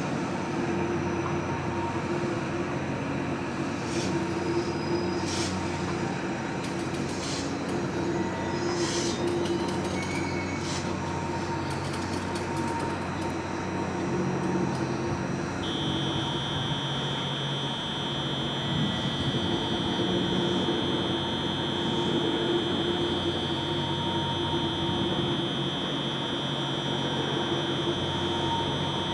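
JR Kyushu 821 series six-car electric multiple unit pulling into a station platform and coming to a stop, with a steady hum from the train and a few faint high squeaks early on. About halfway through, a steady high-pitched tone comes in and holds.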